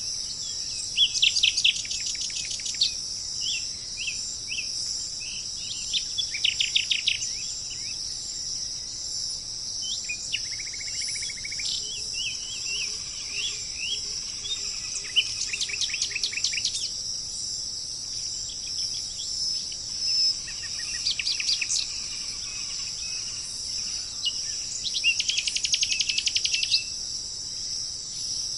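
Birds singing in rapid trilled phrases of quick repeated notes, about half a dozen times, over a steady high-pitched chorus of insects.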